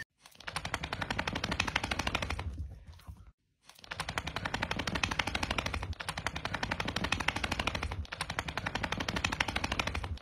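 Helicopter main rotor chopping at a rapid, even beat. It fades out and stops for a moment a little before the middle, then comes back and runs on steadily.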